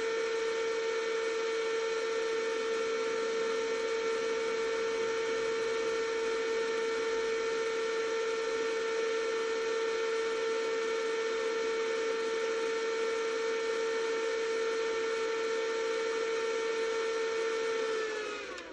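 Electric motor driven by a Vevor VFD, running with a steady whine, then spinning down with falling pitch near the end. The drive has put the motor into run on power-up with no start signal at its X terminals.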